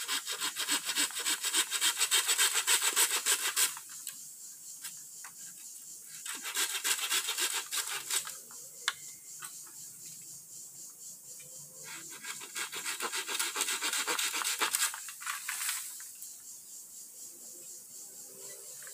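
Hand saw cutting green bamboo in quick rasping strokes, in three spells of sawing with short pauses between, the last about three and a half seconds long.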